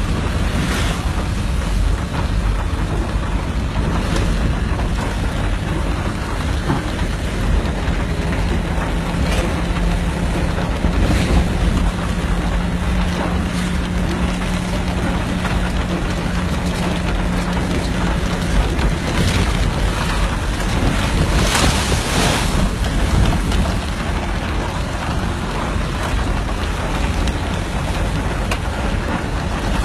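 Heavy rainstorm: rain and strong wind, with the wind buffeting the microphone. A steady low hum runs underneath from about 8 s to 19 s, and brief louder gusts come around 11 s and 22 s.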